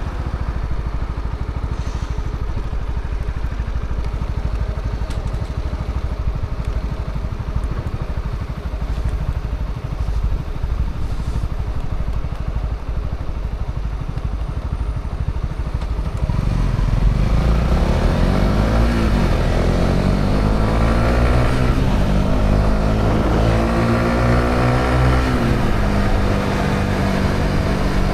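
Honda CB125R's 125 cc single-cylinder engine through its stock exhaust. It is a low, steady rumble at first, then about two-thirds of the way through it pulls away: the pitch climbs and drops back at each of three gear changes, then holds steady.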